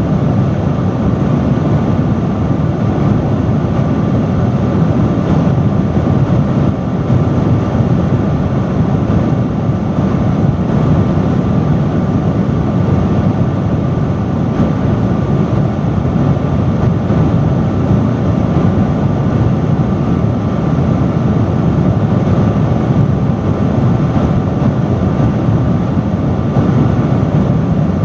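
Loud industrial fan running steadily: a constant rush of air, heaviest in the low end, with a faint steady whine.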